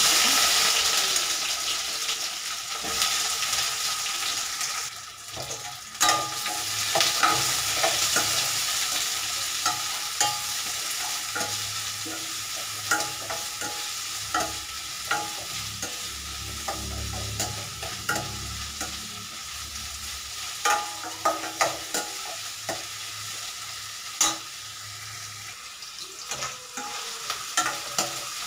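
Sliced onions frying in hot ghee and oil in a stainless steel kadai, a steady sizzle that swells as they go in at the start and slowly settles. Through it a metal slotted spoon stirs, clicking and scraping against the pan.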